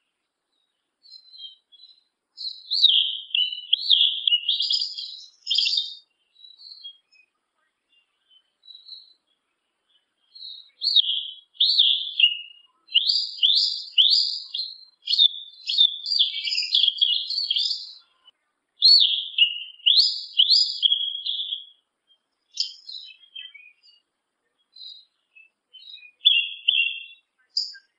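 Male yellow-legged thrush (sabiá-una) singing: runs of rapid, high, warbled notes sweeping up and down, delivered in phrases broken by short pauses.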